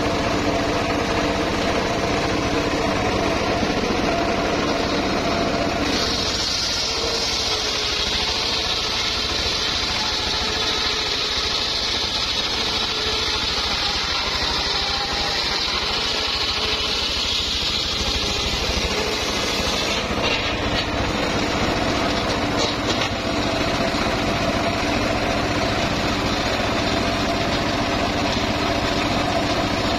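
Homemade circular saw bench running steadily. About six seconds in, the blade bites into the log, ripping it lengthwise as a loud high-pitched cutting scream over the motor, which sounds lower and strained. The cut ends about twenty seconds in and the saw runs free again.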